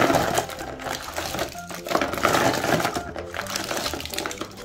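Many small sealed plastic jelly cups clattering and rustling against each other as handfuls are scooped up and let fall back into a plastic box, loudest twice. Background music plays underneath.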